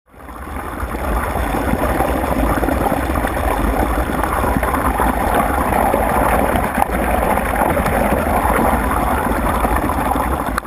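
Boat under way: a steady rush of water and wind with an uneven low rumble, fading in over the first second.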